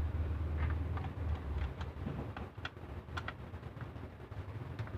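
Irregular small clicks and ticks of a screwdriver undoing the bottom-cover screws of a Dell Precision M4500 laptop, over a low hum that is strongest in the first two seconds.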